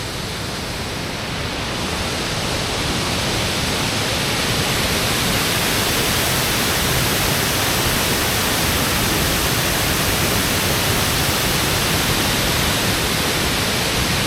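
Open, unfrozen river water rushing steadily below a bridge, a continuous even rush that grows a little louder over the first couple of seconds and then holds.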